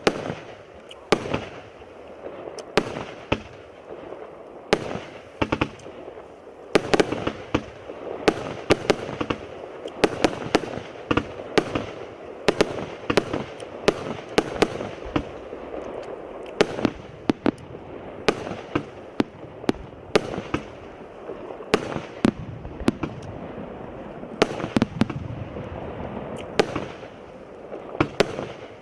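Atlas firework by Evolution being fired: an irregular, rapid run of sharp shots and bangs, often several a second, over a continuous hiss.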